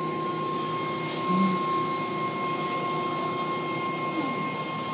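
Automatic car wash tunnel machinery heard from inside a car: a steady mechanical hum with a constant high whine, and a brief hiss about a second in.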